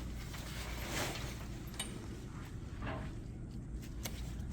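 Tent fabric rustling and a couple of sharp clicks from plastic buckles being snapped shut, over a steady low rumble.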